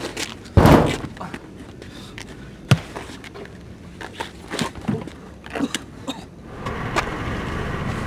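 Two men scuffling against a car: a heavy thud about half a second in, a sharp knock a couple of seconds later, and scuffing footsteps, clothing rustle and small knocks between them. A steady low rumble starts near the end.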